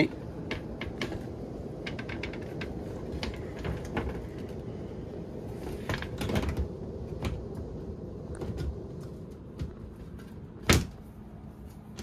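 Light clicks and knocks from hands handling the sheet-metal cabinet of a ducted mini-split air handler, with one sharper knock near the end.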